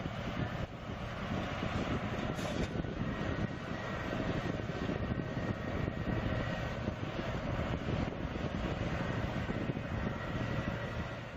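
A large machine's engine running steadily: an even, dense rumble with hiss.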